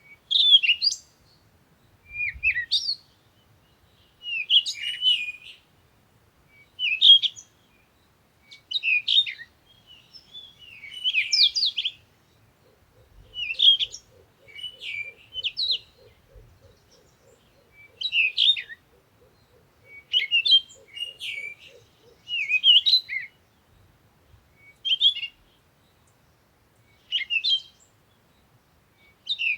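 A songbird singing short, quick chirping phrases, one about every two seconds, with brief pauses between them.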